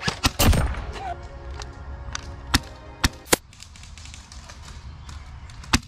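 Sharp pops of an airsoft gun firing in irregular single shots: a quick cluster at the start, a few more about halfway through, and one near the end. Background electronic music runs underneath.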